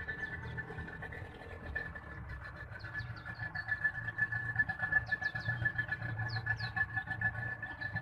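Outboard motor running steadily, driving a wooden boat along, with a constant high whine over a low drone.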